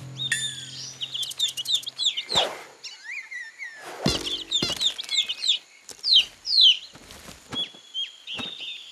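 Cartoon bird chirps and tweets: many quick, high chirps, some sliding up or down in pitch, broken by a few short thumps.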